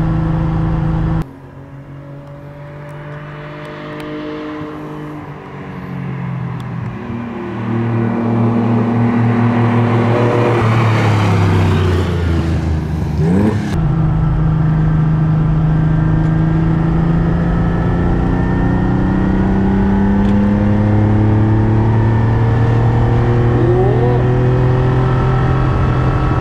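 Ferrari Dino 246's V6 engine heard from inside the cabin while being driven, not yet fully warmed up. Its note drops away suddenly about a second in, then falls and rises through gear changes. Halfway through it settles into a steady, louder drone whose pitch climbs slowly.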